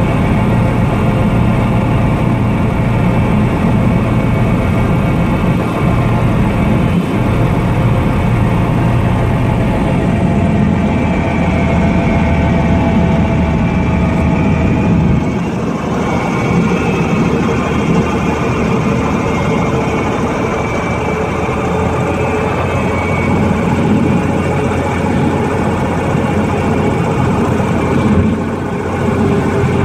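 Light airplane's piston engine and propeller running at low power during the landing rollout, heard from inside the cockpit, with steady tyre and wind noise. The engine note shifts lower about halfway through.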